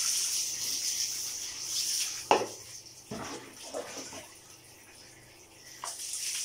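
Water poured from a plastic scoop over a dog's back and splashing onto a tiled floor, at the start and again near the end. A sharp knock about two seconds in, with quieter splashing and rubbing in between.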